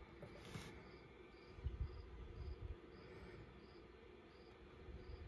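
A cricket chirping faintly and evenly, about two chirps a second. Soft low thumps from the folding knife being handled close to the microphone; the loudest comes a little under two seconds in.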